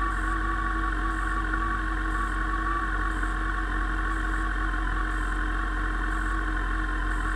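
Motorcycle engine idling steadily, with an even low rumble and a constant higher hum over it.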